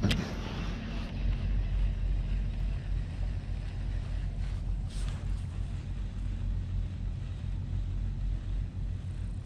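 Wind rumbling on the microphone, with a sharp click at the start and a fainter tick about five seconds in.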